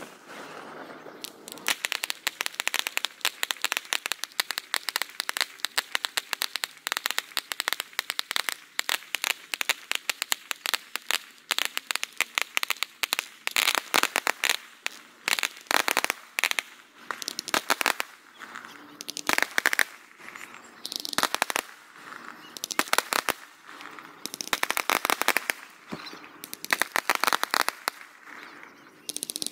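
Crackling aerial fireworks bursting: dense runs of rapid sharp pops and crackles that come in waves every second or two.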